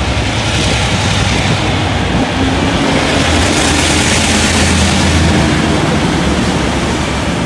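Taiwan Railway R100-class diesel-electric locomotive R116 passing close by, its diesel engine a steady low drone under a broad rush of noise. It swells to its loudest about halfway through as the locomotive draws alongside.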